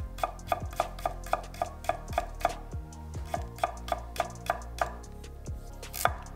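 Nakiri knife blade chopping cucumber on an end-grain wooden cutting board: a quick, even run of cuts about three a second that stops about five seconds in, with one more cut near the end. Background music with a beat plays under it.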